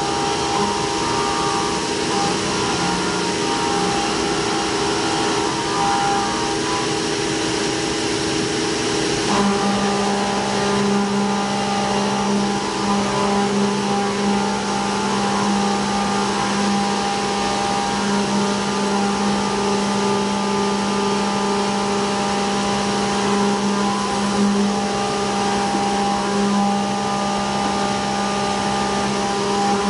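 CNC milling machine's end mill cutting a pocket under flood coolant on a traditional racetrack toolpath: a steady cutting whine made of several held tones over a hiss. About nine seconds in, the tones shift abruptly and a lower tone comes in as the cut changes.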